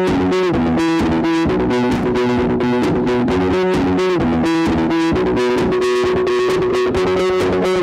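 Background music: a rock-style track with distorted electric guitar and bass over a steady beat.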